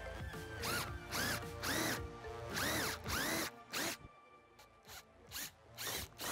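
Cordless drill boring a hole through a plastic license plate bracket in repeated short bursts. The motor's whine rises and falls in pitch with each squeeze of the trigger: a run of bursts over the first four seconds, then a few shorter ones near the end.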